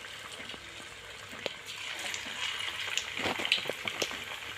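Masala-coated okra deep-frying in hot oil in a kadai: a steady sizzle with scattered crackles and pops.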